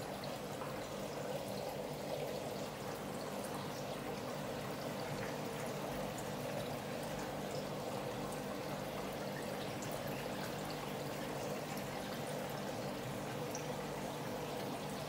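Steady running and bubbling water of a large aquarium's aeration and water circulation, over a low steady hum.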